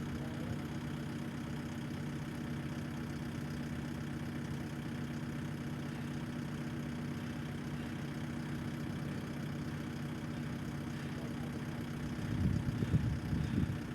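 Engine idling steadily with a low, even hum, and a louder uneven rumble for a second or two near the end.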